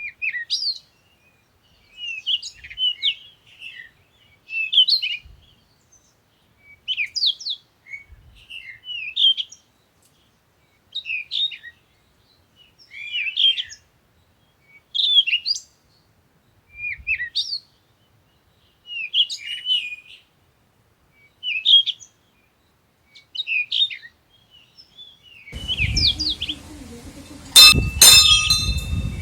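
Small birds chirping in short twittering phrases about every two seconds. Near the end a fuller outdoor background comes in, with a few sharp clicks.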